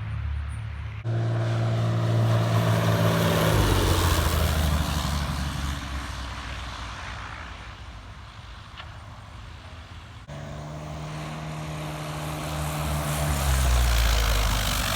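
Propeller airplane engine passing by twice, its pitch dropping as each pass goes by. Each pass comes in suddenly, about a second in and again about ten seconds in.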